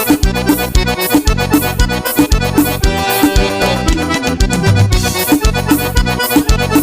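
Instrumental vanerão dance music led by accordion over a fast, steady bass and drum beat.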